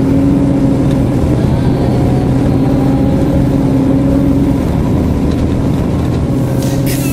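Bus engine running, heard from inside the passenger cabin: a steady low drone with a hum.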